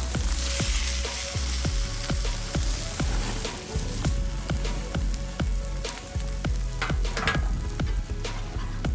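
Ribeye steaks sizzling over flaring charcoal on a cast iron hibachi grill, with a dense hiss and many sharp crackles and pops as fat hits the fire. A steady low music beat runs underneath.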